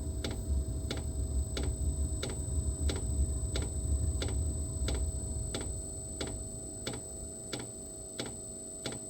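Vevor diesel air heater's fuel dosing pump ticking about three times a second, over the low rumble of the burner, which weakens over the last few seconds. Air left in the fuel line after running dry probably makes the burner fire on and off.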